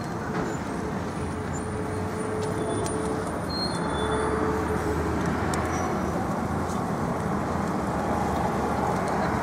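Steady road traffic noise, with a motor vehicle's engine running close by and its low rumble growing louder from about four seconds in.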